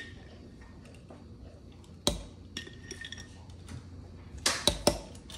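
Measuring spoon clinking against a glass spice jar and a ceramic cup while spooning out ground cinnamon: one sharp clink about two seconds in with a brief ring, then three quick clinks near the end.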